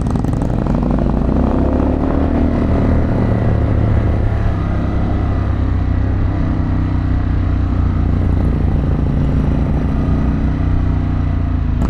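2024 Harley-Davidson Pan America's Revolution Max 1250 V-twin running under way uphill, its pitch rising over the first few seconds and then holding fairly steady with small changes.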